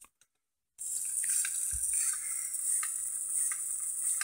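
The small N20 gearmotor of a 3D-printed pin-walker robot toy running: a steady, high-pitched whir with light, irregular clicks. It starts about a second in, after a brief silence.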